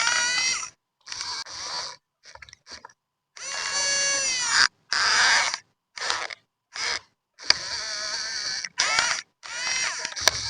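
RC model excavator's electric motors whining in a string of short bursts, the pitch sliding up and down as the machine moves, each burst cutting off abruptly into silence.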